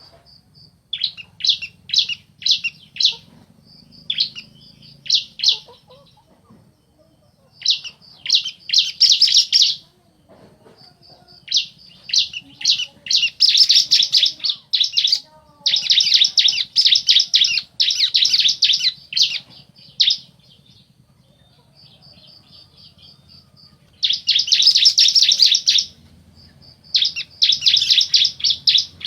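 Bar-winged prinias (ciblek), male and female, calling back and forth in bursts of rapid high trills one to three seconds long. Between the bursts come quieter runs of short thin notes.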